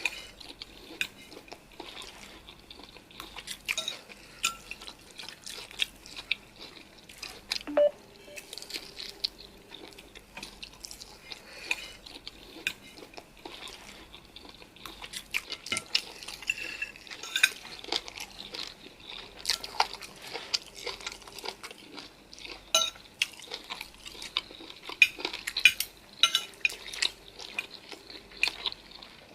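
Eating noodles and chicken close to the microphone: cutlery clinking irregularly against dishes, with chewing.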